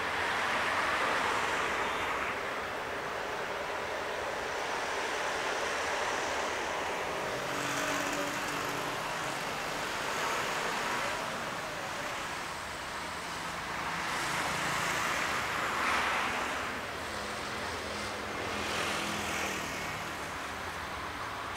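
Steady rumble of passing vehicles, swelling and fading every few seconds.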